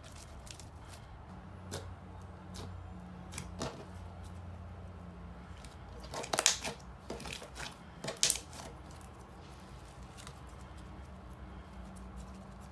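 Slime being pressed and stretched on a tabletop, giving scattered crackling clicks and small pops, with two louder clusters of snaps a little past the middle, over a faint low hum.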